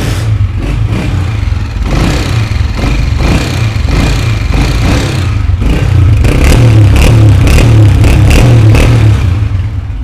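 Honda CG 125 single-cylinder four-stroke engine running on its final sound test, with new push rods fitted and the tappets set to 0.08 clearance to cure its earlier tappet noise. It gets louder about six seconds in and eases off near the end.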